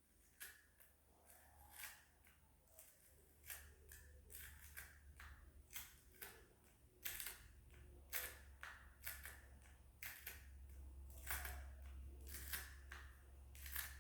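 Faint, irregular scratching and scraping as a stuck sticker is picked and peeled off a remote control, a quick run of short scrapes and clicks.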